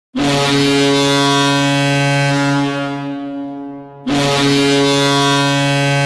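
Ice hockey arena goal horn: a loud, low-pitched steady horn blast that tails away after about three seconds. A second blast starts about four seconds in.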